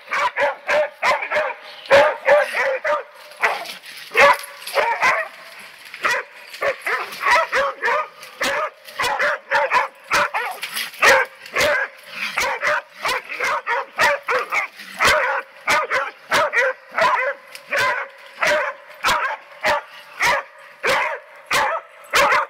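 A pack of beagle-type hounds barking and yelping excitedly over and over, two or three calls a second, several dogs overlapping, as they close in on quarry.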